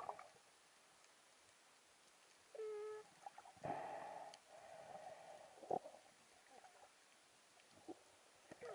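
Muffled underwater sound through an action camera's waterproof housing: a brief low hum about two and a half seconds in, then a longer muffled rushing of water as the diver moves, with a few faint knocks.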